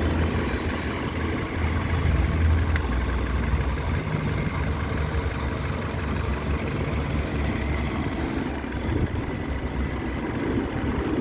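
2005 Nissan Altima's four-cylinder engine idling steadily. The idle has settled back to the correct speed after a successful electronic throttle body relearn, where it had been hunting between 2000 and 3000 rpm.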